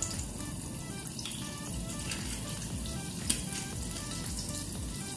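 Soft background music over a faint, steady sizzle of butter melting in olive oil in a frying pan.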